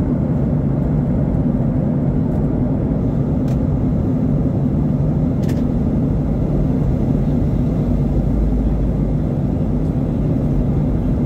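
Steady drone inside the cabin of a Boeing 737-800 in flight: the CFM56-7B engines' low hum under the rumble of airflow past the fuselage.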